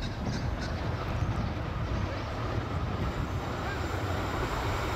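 Diesel-electric freight locomotives (NR class and S class) approaching at a distance, a steady low engine rumble with a hiss of train noise that grows toward the end.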